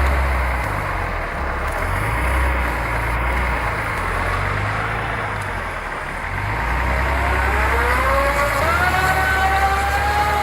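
An engine running over a steady rushing noise, revving up with a rising pitch from about seven seconds in.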